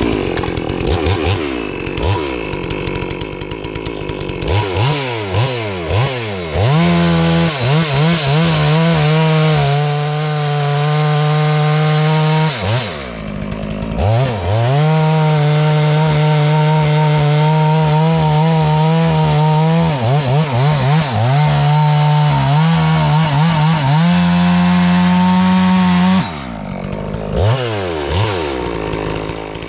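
FarmMac F380W 72cc two-stroke chainsaw with a 28-inch bar, blipped up and down a few times, then held at full throttle through a large log in two long steady stretches with a brief dip in between. Near the end it drops back toward idle with a couple of quick revs.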